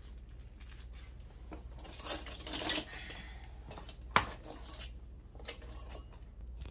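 Metal doorknobs and door hardware clinking and clattering against each other as they are handled in a cardboard box, in scattered short knocks with one sharper clank about four seconds in.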